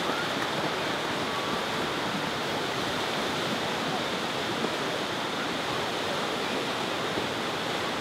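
Ocean surf washing in, a steady rushing sound of breaking waves.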